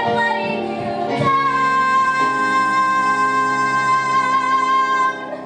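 A woman singing a musical-theatre song with instrumental accompaniment, ending the phrase on one long held note that fades out about five seconds in.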